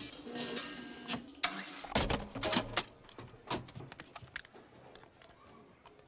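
Sound effects of an arcade claw machine: its mechanism hums as the claw carries the toys, then a run of sharp plastic clicks and knocks as the toys are dropped and handled, thinning out over the last couple of seconds.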